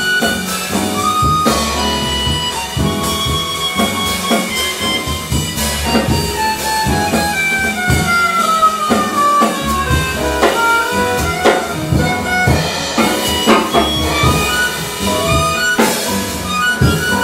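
Chromatic harmonica soloing over upright bass and a drum kit with cymbals in a small jazz combo, the melody falling in a long phrase about halfway through.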